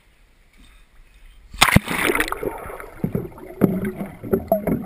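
Pond water splashing and sloshing, with knocks from handling, starting suddenly about a second and a half in and going on in uneven surges.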